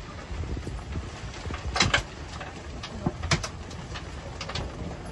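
Storm wind buffeting the microphone in a steady low rumble, with several sharp knocks and rattles from loose gear on deck, the loudest pair about two seconds in.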